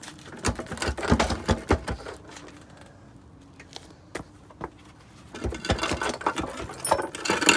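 Two bursts of rapid metallic clicking and rattling, like tools and metal parts being worked and handled: one about half a second in and another from about five and a half seconds in.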